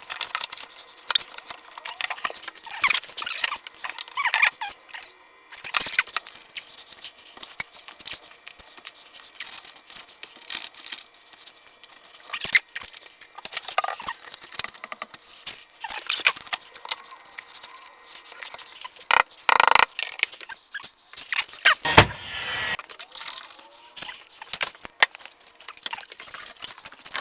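Irregular clicks, scrapes and rustles of composite plastic shims and wood blocking being fitted between a door jamb and the framing, with a heavier knock about two-thirds of the way through.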